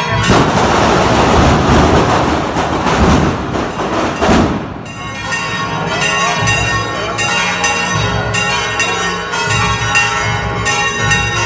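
Bells ringing in a continuous peal. For the first five seconds or so a loud, even rush of noise covers them, then it stops abruptly and the bells ring on clearly.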